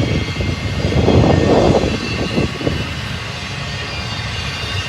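Union Pacific intermodal freight train rolling past at speed: a steady rumble of locomotives and cars, swelling about a second in and easing back.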